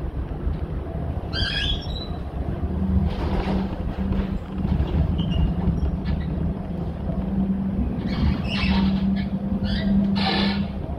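Cologne KVB Stadtbahn light-rail car running over pointwork: a steady low drive hum, a brief high squeak about a second and a half in, and wheels clattering over the switches, heaviest in the last few seconds.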